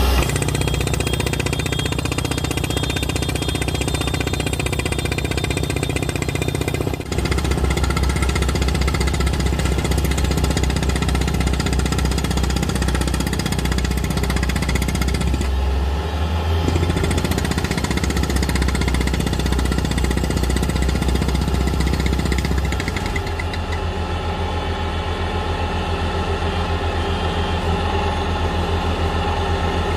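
Ground-screw drilling rig on a Bobcat compact track loader, running hard into rocky ground: the loader's diesel engine drones steadily under a fast, continuous hammering chatter from the drill head. The sound shifts briefly a few times.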